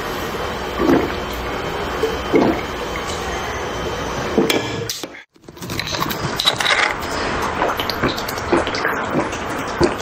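A person gulping a drink from a plastic bottle, with loud single swallows about every second and a half. After a brief cut to silence near the middle, a plastic drink bottle is handled and its cap twisted off, then gulping starts again.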